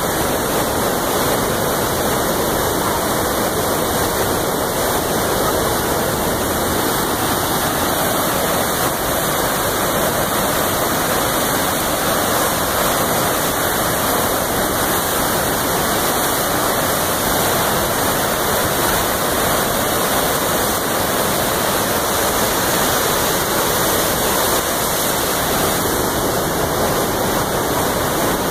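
Floodwater pouring over a dam and churning through whitewater rapids below it: a loud, steady roar of rushing water from a river in flood after heavy rain.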